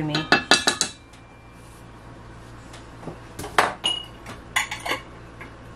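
Metal kitchen utensils clinking: a quick run of sharp taps in the first second, the nutmeg grater knocked against the stainless steel mixing bowl. From about three and a half seconds in come a few scattered knocks and clinks, one with a short ring.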